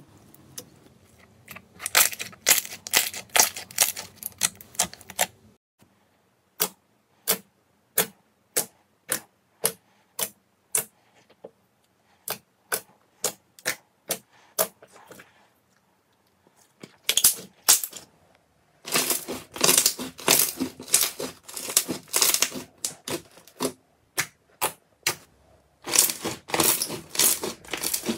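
Slime being pressed and squished by hand close to the microphone, making crackling pops. Between the bursts, single sharp clicks come at an even pace of about two a second.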